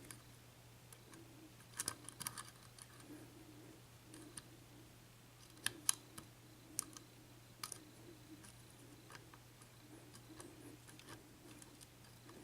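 Faint, scattered metallic clicks and ticks of a lock pick working the pins of an Abus padlock with a Schlage Everest keyway during single-pin picking, a short cluster about two seconds in and single clicks after that, over a faint low hum.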